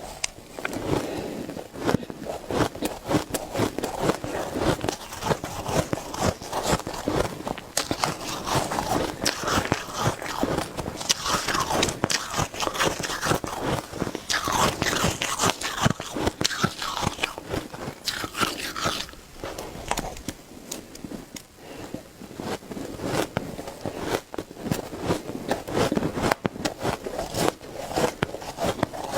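Close-up biting and chewing of shaved ice: a dense, continuous crunching and crackling of ice between the teeth, crisper and brighter for several seconds midway.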